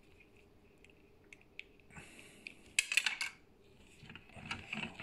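Hard plastic parts of a Samsung PowerBot robot vacuum being handled during reassembly: a few faint ticks, then a louder clatter of clicks about three seconds in, and more rustling and knocking near the end.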